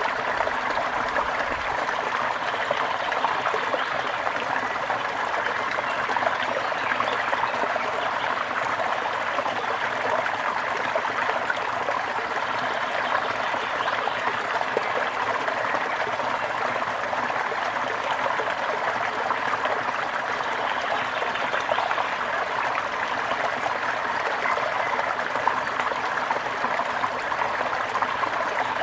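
A small brook running over stones, with steady babbling and trickling water.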